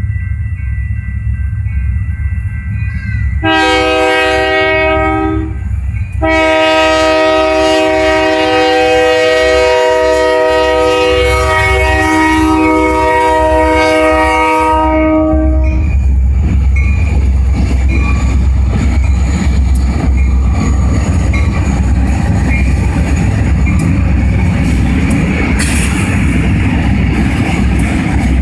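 Horn of an EMD GP40M-2 diesel locomotive sounding for a grade crossing: a blast of about two seconds, then a long blast of about ten seconds. After the horn stops, the locomotive and its freight cars run past with a steady low rumble and wheel clatter.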